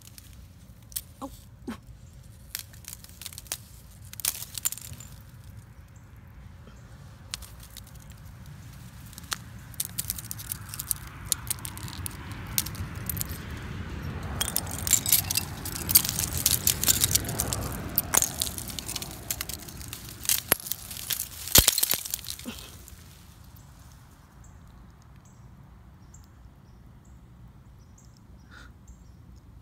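Icicles and ice-glazed shrub twigs snapped and broken by hand: a scatter of sharp cracks and glassy clicks, with a busier stretch of crackling and crunching around the middle. It goes much quieter for the last several seconds.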